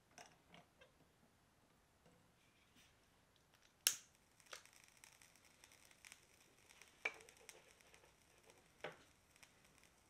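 Faint clicks and small metallic ticks as the alcohol burner of a Belgian balance siphon coffee maker is uncapped and its wick lit. The sharpest click comes about four seconds in, with a few softer ones after.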